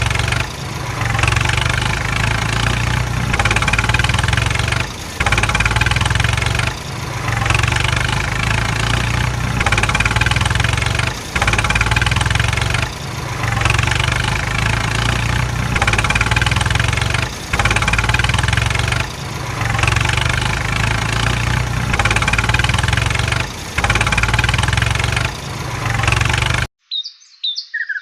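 Vehicle engine running in a loud, steady drone, with short breaks at regular intervals of about every one and a half to two seconds, mixed with high chirping.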